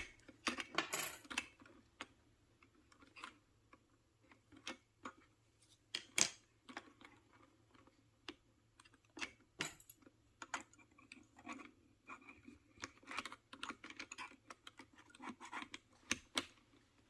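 Irregular plastic clicks and taps of keyboard keycaps, as the space bar keycap on a Freewrite keyboard is pried off and keycaps are handled.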